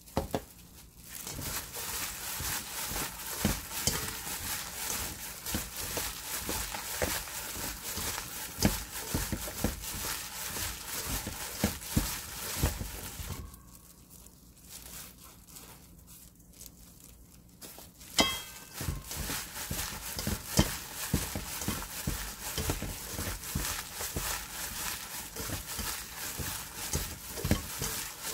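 Hands in disposable plastic gloves kneading dried radish strips with chili powder in a stainless steel bowl: crinkling of the gloves and squishing of the radish. The noise dies down for a few seconds about halfway through, then starts again with a sharp click.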